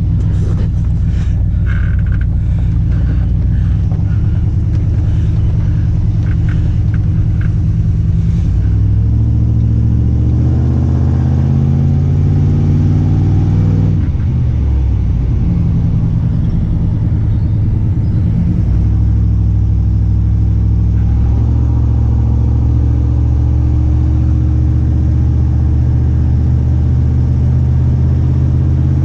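Truck engine running while driving with a loaded trailer, a steady low hum whose pitch rises about nine seconds in, dips around fourteen seconds and shifts again around twenty seconds as the speed and gears change.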